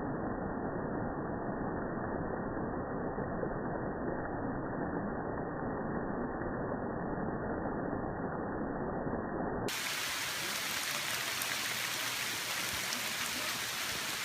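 Rain falling in jungle foliage as a steady hiss. For the first ten seconds or so it is slowed down and muffled by slow-motion playback. Near the end it switches abruptly to normal speed and turns bright and hissy.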